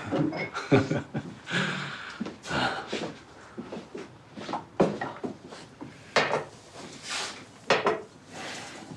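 Scattered light knocks, clicks and rustles from people moving about and handling things, with a few brief hissing sounds.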